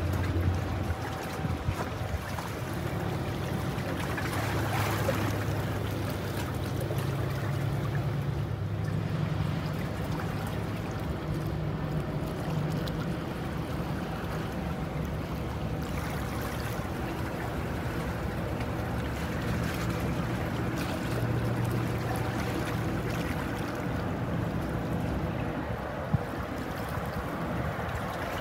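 Harbour ambience: a low droning hum from a ship's engine under steady wind noise on the microphone and water, with a few sharp clicks near the start and one near the end.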